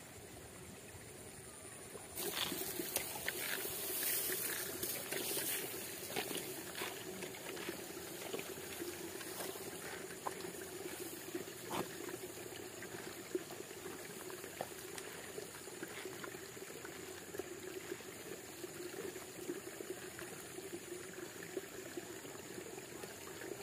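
Water trickling and babbling in a steady small flow. It gets louder about two seconds in, with scattered crackles over the next few seconds.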